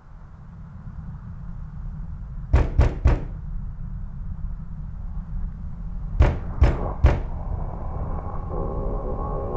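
Two sets of three sharp knocks, about four seconds apart, over a low rumbling drone that grows louder. A wavering higher tone comes in near the end.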